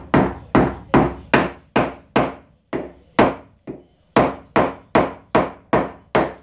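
A mallet knocking a glued plywood lamination down into a laminated plywood frame: a steady run of sharp wooden knocks, about two or three a second, with a short break and a softer blow about halfway through.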